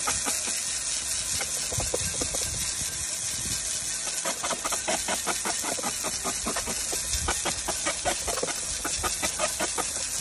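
Garden hose spray nozzle hissing steadily as its jet of water spatters on an iron weight plate and the wooden board under it, with dense quick pattering through the second half.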